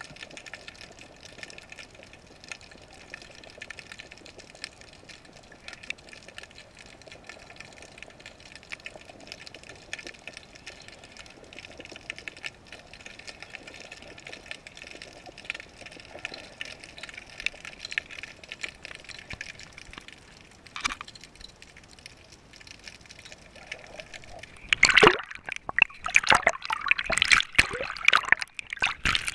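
Underwater sound through a GoPro's waterproof housing: a steady faint hiss with fine crackling, then, about four seconds before the end, loud irregular splashing and sloshing of water against the camera as it nears the surface.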